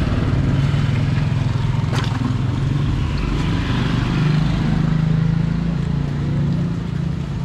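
A motor engine running steadily at low revs, a low hum with slowly shifting pitch, with one sharp click about two seconds in.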